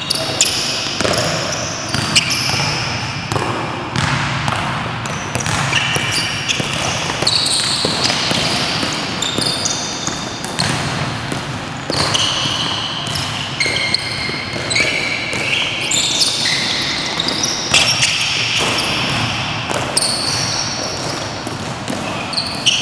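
A basketball bouncing and striking on an indoor court, with sneakers squeaking in short high chirps on the floor as players cut and jump, echoing in a large sports hall.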